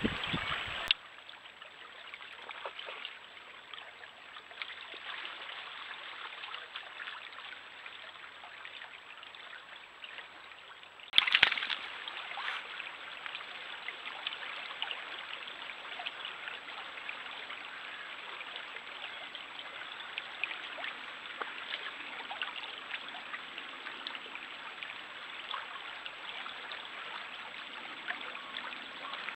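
A small stream trickling and gurgling steadily over stones. A sharp click about eleven seconds in, and a softer one about a second in.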